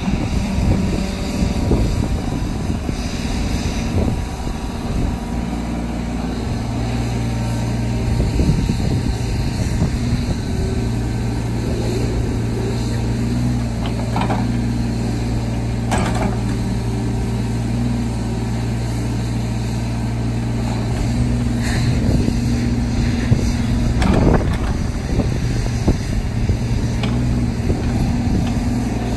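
Caterpillar 302.4D mini excavator's Yanmar diesel engine running steadily while the machine slews and works its boom and bucket, with a few short knocks part way through.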